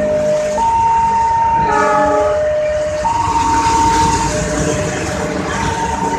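Railway level-crossing alarm from a horn-loudspeaker siren, newly fitted at this crossing. It alternates between a high and a low steady tone, switching about every one and a quarter seconds. Under it a passing train rumbles, and a short horn note comes in about two seconds in.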